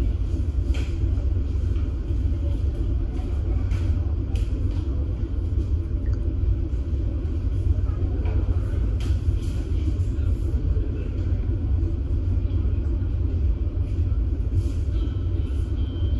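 Steady low rumble of a ferry's engines underway, heard from on deck, with faint scattered clicks.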